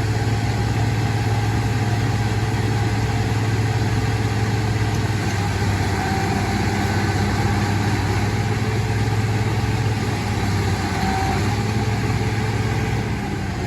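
Heavy vehicle engine running steadily with a constant low hum.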